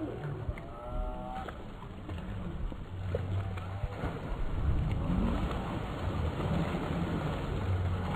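Pool water splashing as children come off a water slide into it, the splashing growing louder from about halfway, over a steady low rumble on the microphone. A child's short call near the start.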